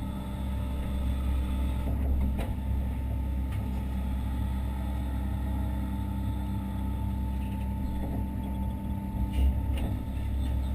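Hitachi Zaxis 130 excavator's diesel engine and hydraulics running steadily, heard from inside the cab, with a low drone and a few short knocks from the working machine, one about two seconds in and a couple near the end.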